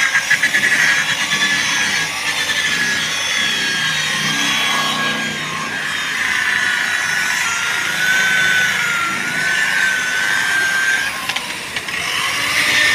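Electric rotary car polisher running with its pad pressed on a car door, buffing Teflon polish into the paint: a steady high motor whine that wavers in pitch as the load on the pad changes, with a brief dip near the end.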